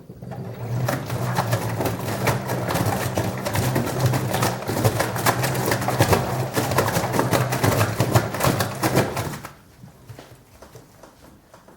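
LG washing machine spinning hard on an unbalanced load: a steady motor hum under a rapid, irregular clatter of knocks and rattles as the drum bangs about. It stops suddenly about nine and a half seconds in.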